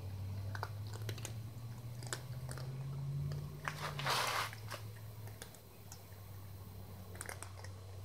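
Cats crunching dry kibble, a scatter of small sharp crunches throughout. A low steady hum runs under the first half, and a short rushing noise about four seconds in is the loudest sound.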